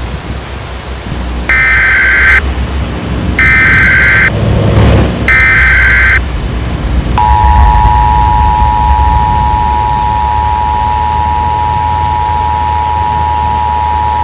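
Emergency Alert System broadcast: three short warbling data bursts of the SAME header, then about seven seconds in, the steady two-tone attention signal starts and holds, heralding a tornado warning. A low storm rumble of rain and thunder runs underneath.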